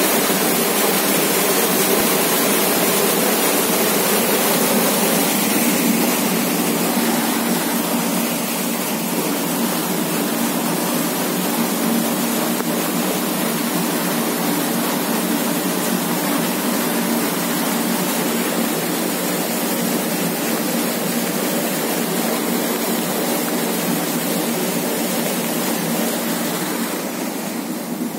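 Muddy floodwater rushing and gushing as a steady wash of water noise, a little louder in the first few seconds.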